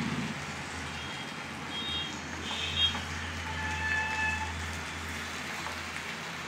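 A spatula stirring and scraping a thick curry of ridge gourd, boiled eggs and chana dal in a frying pan, over a steady low hum. There are a few short high squeaks, and a held tone a little before the middle.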